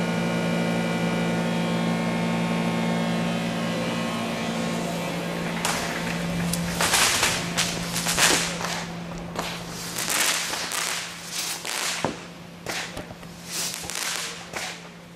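Epoch EP-560A HHO gas generator running with a steady hum of several tones. About six seconds in, the hum gives way to a long run of irregular, sharp crackling bursts, the loudest of them a second or two after they begin.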